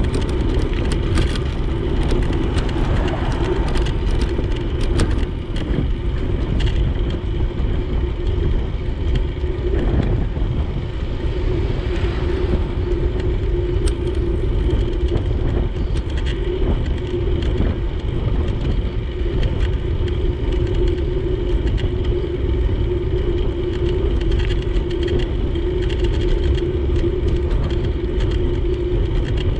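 Wind rumbling on the microphone during a bicycle ride along a road, over a steady mid-pitched hum.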